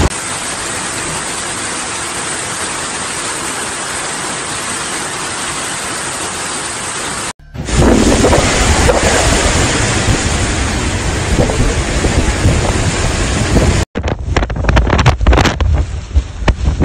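Heavy rain pouring down in a steady hiss; after a cut the downpour carries a deeper rumble, and in the last few seconds strong wind buffets the microphone in irregular gusts.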